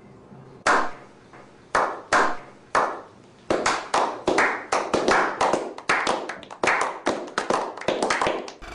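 A slow clap by a small group of men: single sharp hand claps about a second apart at first, quickening about halfway through into steady applause of roughly three claps a second.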